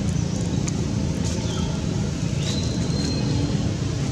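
Steady low outdoor background rumble, with a few faint high chirps above it, one of them held briefly about two and a half seconds in.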